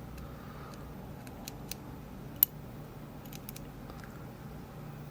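Small sharp clicks and ticks of a lock pick and tension tool working the pins inside a Rav Bariach LocXis pin-in-pin euro cylinder, scattered irregularly with one louder click about two and a half seconds in. A faint steady low hum sits underneath.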